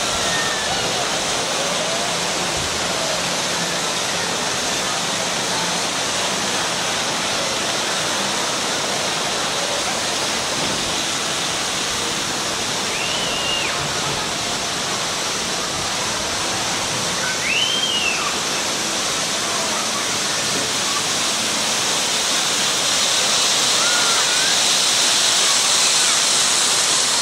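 A steady rushing noise, like falling or splashing water, with faint distant voices and a few short high chirps; it swells a little near the end.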